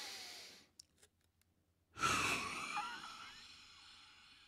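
A deep breath in, then about two seconds in a hard forced exhalation blown into the mouthpiece of a CONTEC SP80B handheld digital spirometer during a lung-function test. The blow starts abruptly at its loudest and tapers off over about two and a half seconds.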